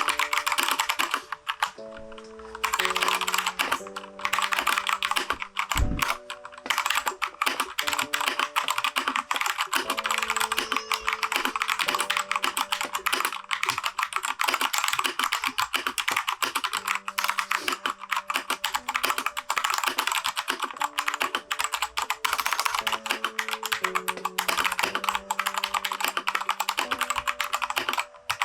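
Fast, continuous typing on a Keychron K2 mechanical keyboard with unlubed Gateron switches, with a short lull about two seconds in. Soft background music with held notes plays underneath.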